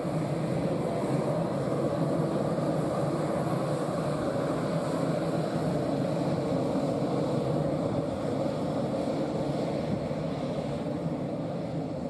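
Airbus A320 jet engines running steadily as the airliner taxis past and turns away, the sound easing off slightly near the end.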